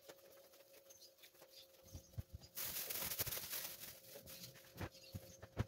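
Hands working a soft shortcrust dough on a stainless steel counter, giving soft thumps and pats. A plastic bag crinkles for about two seconds as the dough is pushed into it, then a few more thumps follow. A faint steady hum lies underneath.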